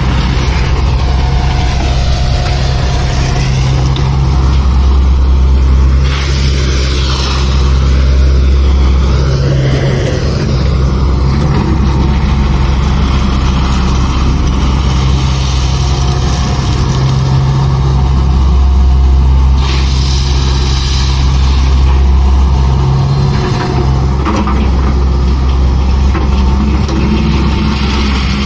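SANY SY140C-9S hydraulic excavator's diesel engine running under working load as it digs crushed stone, its steady drone swelling and easing every few seconds as the hydraulics are worked. Two short bursts of hiss rise over it, one about six seconds in and one near twenty seconds.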